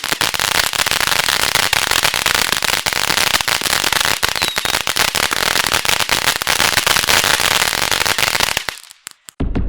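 Fireworks crackling: a dense, rapid stream of pops and crackles that dies away near the end. A fresh rapid string of pops starts just before the end.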